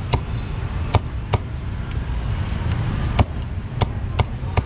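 A meat cleaver chops through roast poultry on a thick round wooden chopping block: about seven sharp chops at an uneven pace, over a steady low background rumble.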